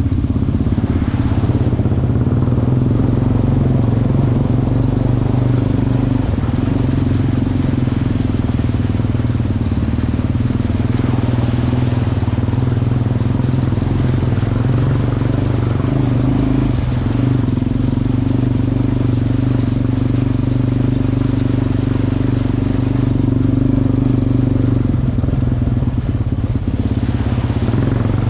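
Single-cylinder sport quad engine running at a steady pace, close up, with water splashing around the front wheels as it fords a shallow rocky stream.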